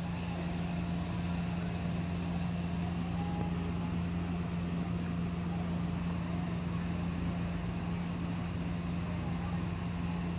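Steady low mechanical hum over even background noise, unchanging throughout.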